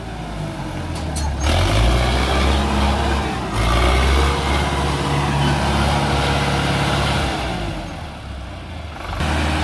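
ACE tractor's diesel engine revving hard under heavy load as it strains to drag a fully loaded double trolley of cement bags through deep mud. The engine runs loudly, dips briefly about three and a half seconds in, eases off around eight seconds, and picks up again near the end.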